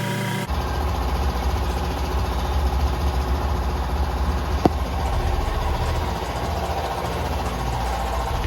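Dual-action (DA) sander running steadily against a car bumper, a dense, even low rumble that cuts in about half a second in. A single sharp click sounds near the middle.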